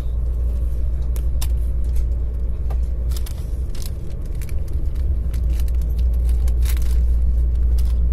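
Steady low rumble heard inside the passenger car of a Sapsan high-speed electric train running at speed, with a few scattered short clicks and ticks.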